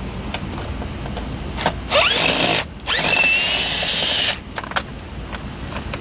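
Cordless drill backing out an 8 mm bolt that holds the truck's center console. It runs twice, briefly about two seconds in and then for about a second and a half, with a rising whine in the second run.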